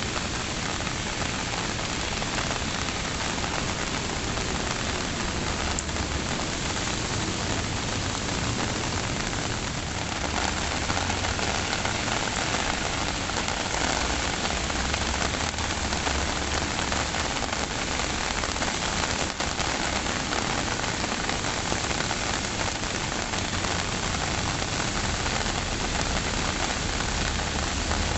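Steady rain falling on surfaces, an even hiss of many drops that grows slightly heavier about a third of the way in.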